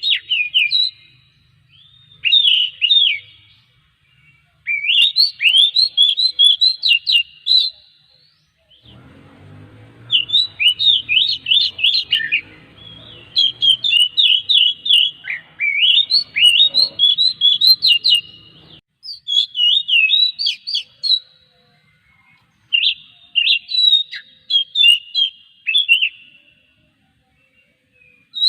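Oriental magpie-robin (kacer) singing: loud phrases of fast, sweeping whistled notes, each lasting a second or a few seconds, separated by short pauses.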